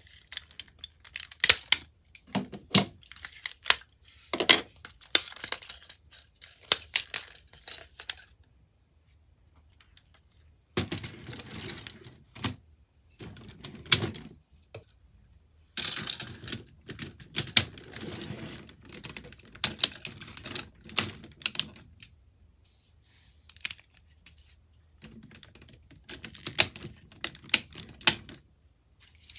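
Hard plastic parts of DX Ultimate DaiBouken combining-robot toys being handled and clicked together: rapid runs of clicks, snaps and rattles, with two short pauses.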